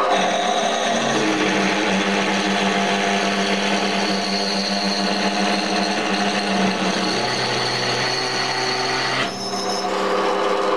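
Metal lathe running while a 10.5 mm twist drill in the tailstock chuck drills into a cast cylinder cover: a steady motor hum with the hiss of the cut. A high squeal joins about four seconds in, and the sound dips briefly about nine seconds in.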